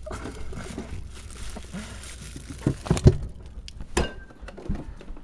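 Items being knocked about and moved on the shelves of a refrigerator: a few knocks and thuds, loudest about three seconds in, then a short ringing clink about four seconds in.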